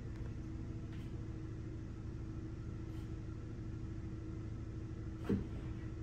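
A steady low machine hum, with one short, sharp sound a little over five seconds in.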